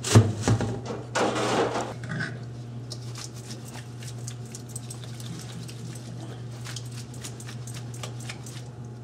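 Metal kitchenware clanking against a stainless steel sink, loudest right at the start, followed about a second in by a short scraping rustle. Then canned apple pieces are shaken in a metal colander to drain them, giving faint scattered ticks and drips over a steady low hum.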